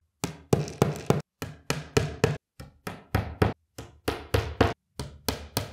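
Steel hammer tapping wooden dowels into the holes of chipboard panels: a quick series of sharp knocks, about four a second, in short runs with brief pauses. The sound of the knocks shows when each dowel sits fully in its hole.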